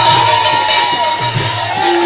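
Loud devotional music with a steady drum beat, jingling percussion like a tambourine, and a held melody line over it.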